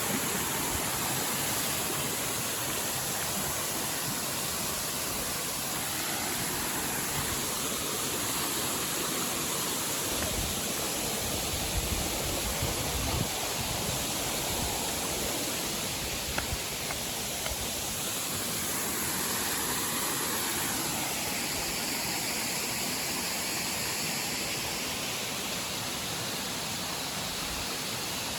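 Waterfall running, a steady rushing of falling water. There is a brief low rumble about ten seconds in and a few faint clicks.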